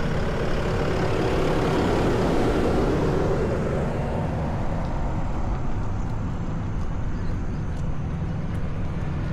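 Wind rumbling on the microphone of a 360 camera carried on a ride. A louder swell of noise builds about a second in and fades by about four seconds.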